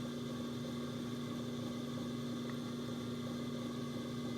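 Potter's wheel motor running with a steady hum while a small knob is thrown.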